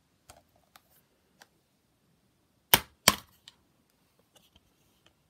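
Plastic DVD keep case handled and snapped open: a few faint clicks, then two sharp, loud clicks about a third of a second apart, followed by light taps.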